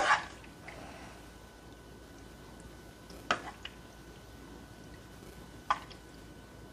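A metal spoon clinking against a ceramic plate as macaroni and cheese is spooned onto a tortilla: a sharp clink at the start, then lighter ones about three seconds in and near six seconds, over a faint steady hum.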